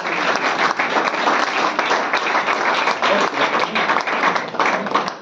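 Applause from a room full of people, dense clapping that thins out near the end.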